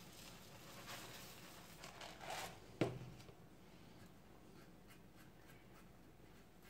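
Oat flakes rustling as they pour from a plastic container into a pot of water, then a single sharp knock a little before halfway. Faint scraping ticks of a spoon stirring the oats in the steel pot follow.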